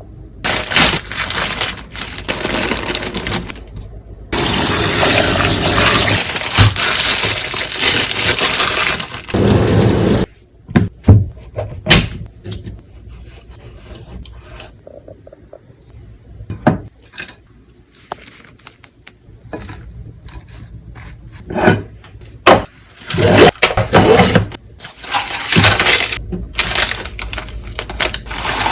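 Kitchen cooking sounds: utensils and ingredients clinking, knocking and scraping against dishes and a pan. A loud steady hiss runs from about four seconds in to about ten, and another stretch of noise comes near the end.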